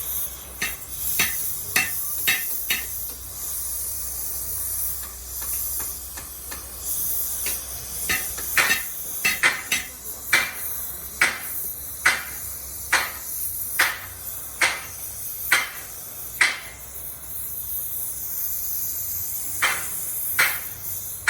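Repeated sharp knocks, one or two a second and thickest in the middle, over a steady high hiss.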